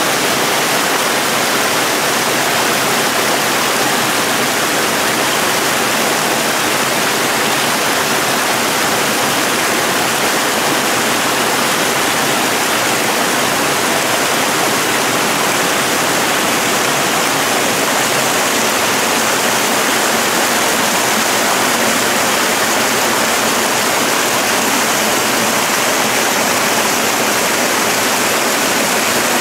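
Small mountain creek cascading down a steep rocky bed in a run of little falls: a steady, loud rush of whitewater.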